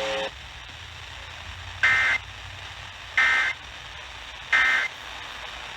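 Emergency Alert System end-of-message signal: three identical short, harsh bursts of SAME digital data, each about a third of a second, spaced about one and a third seconds apart, which mark the end of the alert. A steady tone cuts off just after the start.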